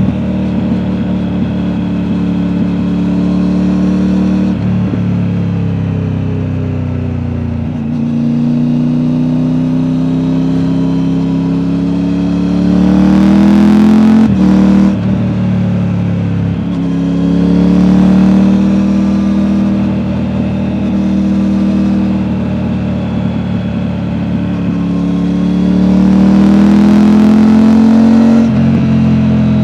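Triumph Tiger 900's three-cylinder engine through an Akrapovic aftermarket exhaust, accelerating hard through the gears. The pitch climbs and drops back at each upshift, about five times, and it is loudest near the middle and near the end. The exhaust note is deep and burbling.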